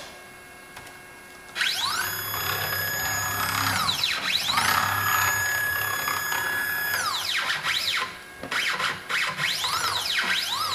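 Stepcraft CNC router's X-axis stepper motor driving the ball screw at a 6,000 mm/min rapid, about twice the recommended maximum feed rate. Starting about a second and a half in, a whine with many overtones rises in pitch as the axis accelerates, holds steady, then falls as it stops. This happens twice over long traverses, followed by several short rising-and-falling moves near the end.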